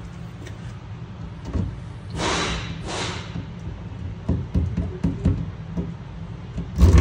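Pneumatic rivet gun: two short hisses of air about two and three seconds in, then light clicks and knocks as the tool is handled, and a heavier knock near the end.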